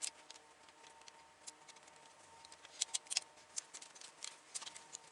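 Faint, scattered clicks and light scrapes of metal being handled, with a cluster of sharper clicks about three seconds in, as lead rings are cleared off the loading rammer of an 1858 Remington cap-and-ball revolver.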